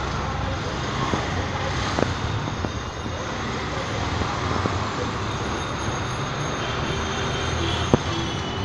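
Steady city street traffic noise with engines running below, with a sharp knock about two seconds in and another near the end.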